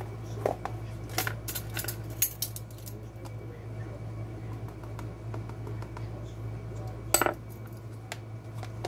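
Metal measuring spoons clicking and clinking as spice is scooped and measured from a plastic container, with a sharper clink about seven seconds in. A low steady hum runs underneath.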